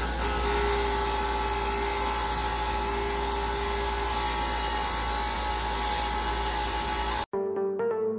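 Bench grinder's wire wheel spinning against a steel axle shaft, wire-brushing it clean: a steady motor whine over a harsh scraping hiss. About seven seconds in it cuts off abruptly and electronic background music begins.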